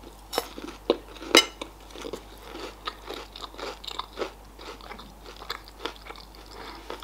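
Close-up chewing of a Raffaello coconut-almond candy, its wafer shell crunching. Two sharp crunches come about half a second and a second and a half in, then softer, irregular chewing.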